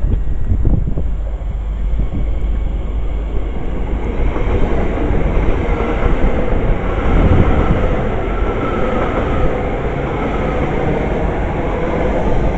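A train running through the station, its noise building about four seconds in and staying loud, with wind buffeting the microphone.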